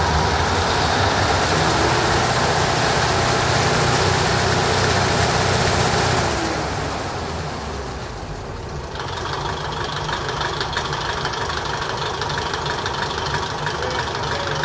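Vertical inline eight-cylinder DMH17C diesel railcar engine, heard close up through an open floor hatch, with a rumbling note. It runs loud at high revs, then eases back about six seconds in and settles to a steady idle.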